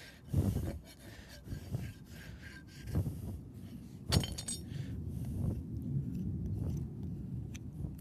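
A single sharp metallic clink with a brief ring about four seconds in, from steel farrier's tools being handled, over low knocks and handling noise during the hoof work.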